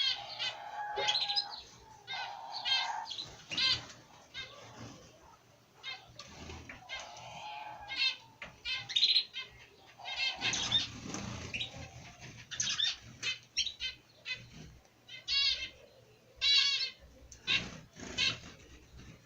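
Several small cage birds in an aviary chirping and calling in short repeated runs of notes, with wings fluttering now and then.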